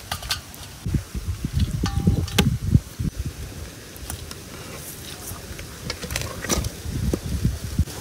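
Steel skimmer ladle clinking and scraping against a metal cooking pot and a steel serving bowl, with soft thuds as scoops of cooked chicken curry drop into the bowl. Sharp clinks come irregularly, several a few seconds apart.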